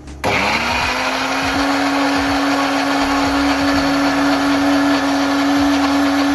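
Electric mixer-grinder switched on about a quarter second in, its motor whine rising quickly to speed and then running loud and steady, grinding fried onion and tomato into a masala paste.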